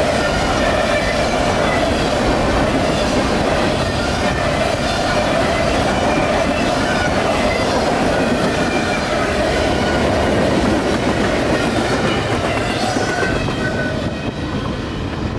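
Freight train cars (covered hoppers and boxcars of a mixed manifest train) rolling past at close range: a steady, loud rumble and clatter of wheels on rail joints, with faint wheel squeal. The noise eases slightly near the end as the last cars clear the crossing.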